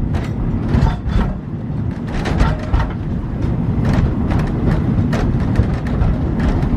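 Passenger car of a narrow-gauge tourist train rumbling along the track, with frequent sharp knocks and clacks of the car and wheels.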